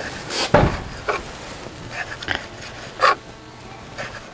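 Kitchen knife and utensils knocking on a cutting board: a few scattered taps, with a heavier thump about half a second in and a sharp knock about three seconds in.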